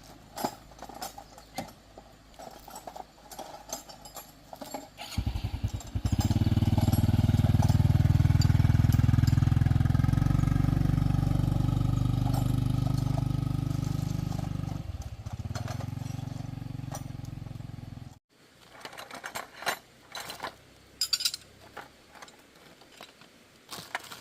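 A motorbike engine starts about five seconds in and runs loudly and steadily, then fades as the bike rides away, until the sound cuts off suddenly. Light clicks and knocks come before and after it.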